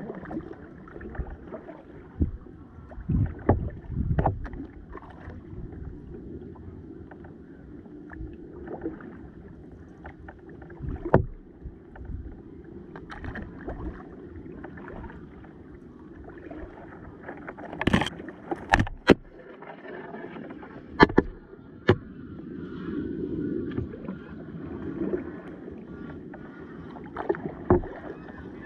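Kayak being paddled on a river: steady water wash and paddle strokes, with sharp knocks every few seconds and a cluster of the sharpest knocks about two-thirds of the way through.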